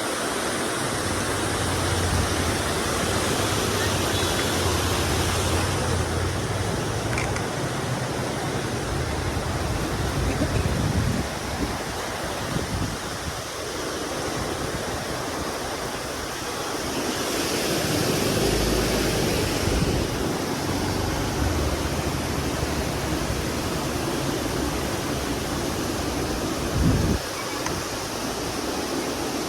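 Heavy rain falling steadily onto a flooded road, a continuous hiss of rain and water, with a louder spell a little past halfway and a low rumble that comes and goes.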